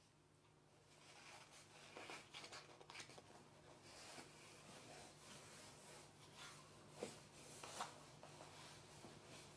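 Faint rustling and scraping of a small cardboard box as a large cat squeezes into it and turns around, with a few sharper creaks and taps, the two loudest near the end.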